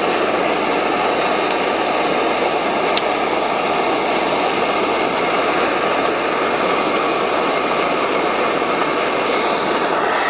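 Canister camp stove burner running with a steady hissing rush of gas flame.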